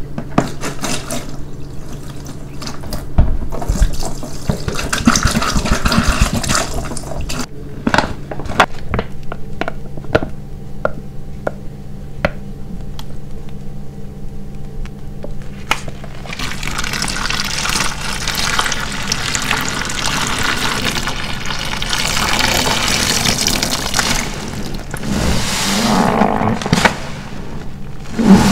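Wet black car-wash sponge squeezed in soapy water, squelching in surges. It is followed by scattered single drips, then a long stretch of steady running water.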